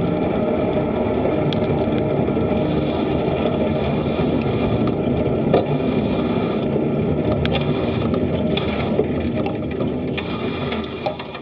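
Steady wind rumble on the microphone of a bike-mounted action camera while riding, with a couple of short clicks; it dies down near the end as the bike comes to a stop.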